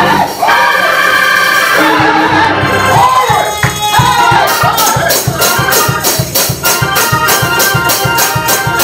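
Live church praise music: keyboard organ and drum kit, with a man's voice over the microphone. About halfway in, a steady quick beat of percussion strikes comes in, roughly four a second.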